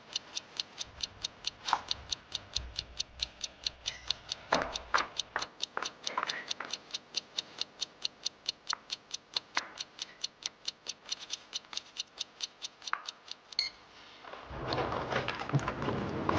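Clock ticking, fast and even at about four ticks a second; it stops near the end and a louder, bustling noise comes in.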